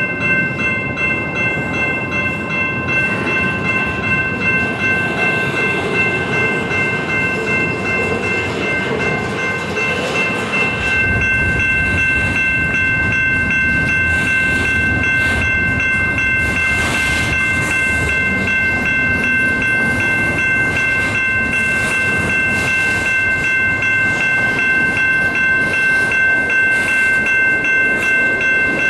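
Freight train rolling past at close range: double-stack container cars and then tank cars, wheels clattering over the rail joints, with steady high-pitched ringing tones throughout. The rumble grows louder about a third of the way in.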